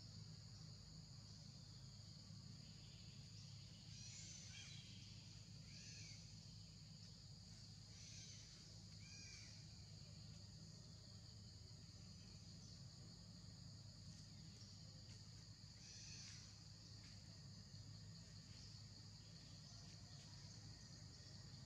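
Near silence filled by a faint, steady high-pitched insect drone, with a few short, faint high calls scattered through it.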